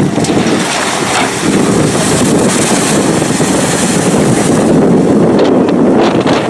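Amphibious bus driving into the water and ploughing through it, a loud steady rush of splashing water mixed with wind buffeting the microphone.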